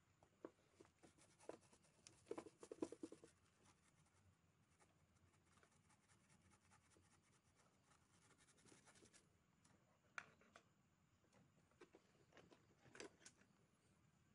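Near silence with faint scratching and ticking of a small brush scrubbing a corroded ECU circuit board with thinner, a quick run of strokes about two seconds in and a few scattered ticks later.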